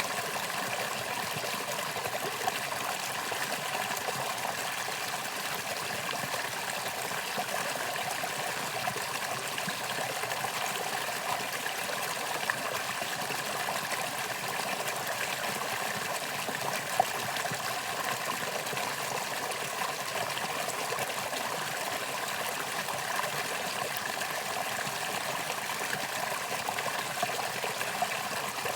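Mountain valley stream flowing steadily over rocks, a continuous rush and burble of water with the odd small splash.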